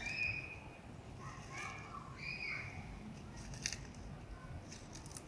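Outdoor ambience: a few short high-pitched calls in the first half, and a brief crackle about three and a half seconds in.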